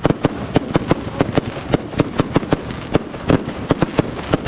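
Fireworks going off in a rapid, irregular string of sharp bangs, several a second.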